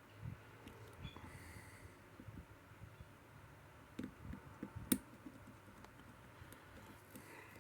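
Faint small clicks and scrapes of a lock pick and tension wrench working the pins in the keyway of a Sezam lock, with a sharper click about five seconds in.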